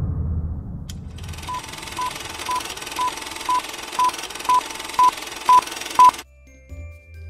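Film-leader countdown sound effect: a steady hiss with a short, high beep every half second, ten beeps growing louder, then cutting off abruptly about six seconds in. Before the countdown starts, the low rumbling tail of a heavy impact fades out over the first second.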